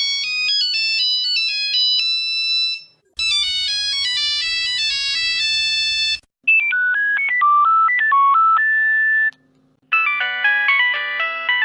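Mobile phone ringtones played one after another: four different short electronic melodies of a few seconds each, separated by brief pauses. The second one has a low hum beneath it.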